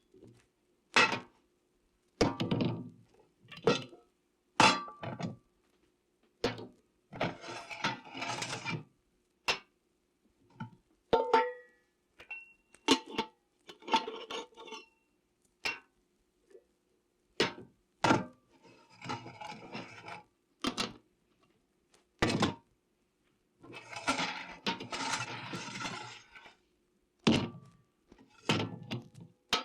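Pots and pans being handled in a kitchen: single metal clanks and knocks, broken by three longer bursts of clattering, the last being the longest.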